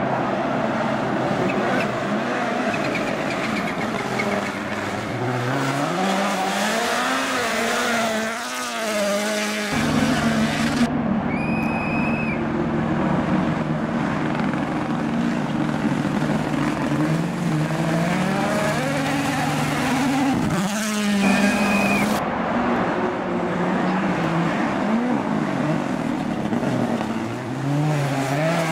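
Rally cars at full attack, their engines revving high and falling back through quick gear changes as they pass, one car after another.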